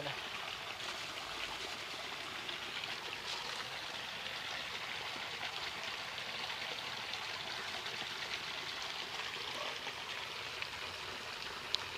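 Steady rush of a small muddy stream flowing, with one sharp click near the end.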